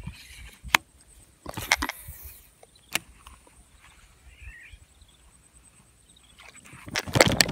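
Handling noise from a baitcasting rod and reel: a few sharp clicks and brief rustles, then a louder rustling burst near the end.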